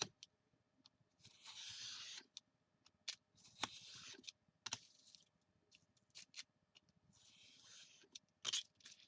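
Paper or cardstock being cut: three short, faint scraping strokes with light clicks and taps between them.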